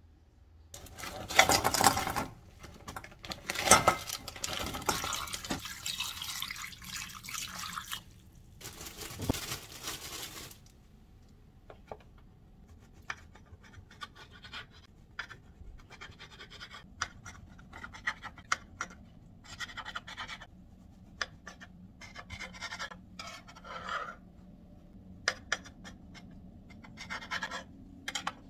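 Serrated bread knife sawing the crusts off slices of sandwich bread on a cutting board: many short, irregular scraping strokes through the second half. For most of the first ten seconds a louder stretch of rustling noise covers everything.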